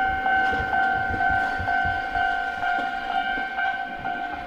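Electronic warning alarm set off by a tram's pantograph working the trolley contactor on the overhead wire: a steady two-tone sound that pulses about twice a second, over the low rumble of the tram.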